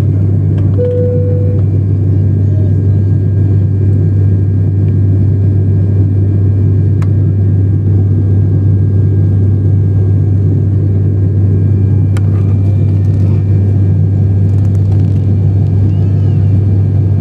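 Steady drone of an ATR 72 turboprop's engine and propeller in cruise, heard inside the passenger cabin, with a strong low hum. A brief single tone sounds about a second in.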